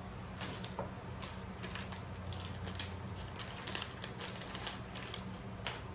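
Irregular small clicks and rattles of parts being handled and fitted while working on an ATV seat latch, over a steady low hum.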